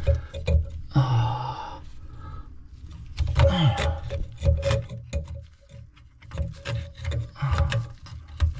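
Irregular scraping, rubbing and small clicks as debris is worked out of a clogged bathroom sink drain pipe.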